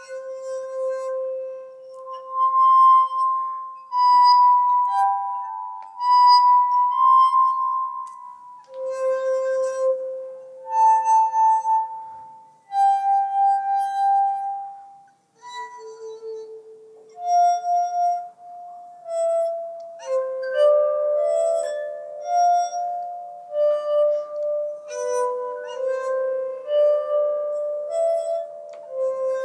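Glass harp: wet fingertips rubbed around the rims of wine glasses filled with water and tuned to a musical scale, playing a slow tune of sustained, pure ringing notes. The notes change every second or two, often two sounding together, more overlapping toward the end.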